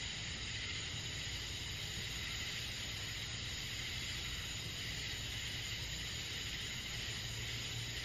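Summer night chorus of crickets trilling steadily and continuously, with a faint low rumble underneath.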